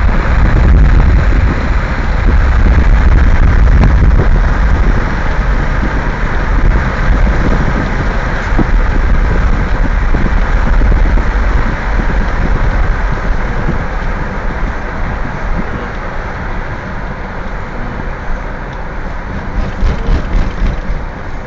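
Strong wind rushing and buffeting the microphone in a loud, steady rumble, easing somewhat in the second half.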